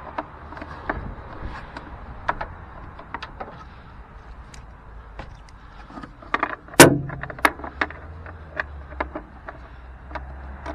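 Scattered metallic clicks and knocks from a car battery being seated in its tray and its hold-down clamp being fitted, with one loud clunk about seven seconds in.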